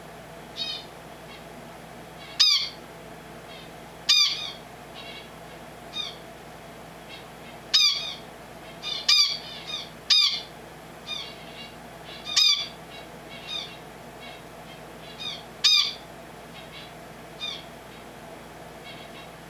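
A finch calling: a dozen or so short chirps, each a brief ringing note, spaced irregularly a second or two apart, some much louder than others.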